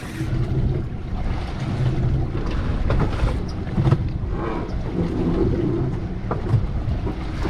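Wind buffeting the microphone over water slapping against a small boat's hull, with a few sharp knocks on the boat.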